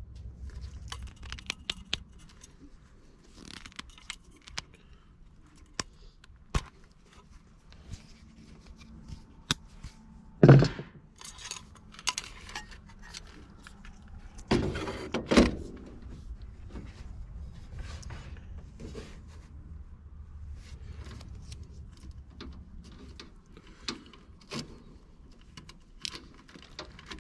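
Hand tools and wires being handled while wiring at a furnace cabinet: scattered small clicks, rustles and scrapes, with a few louder knocks, one about ten seconds in and two around fifteen seconds in.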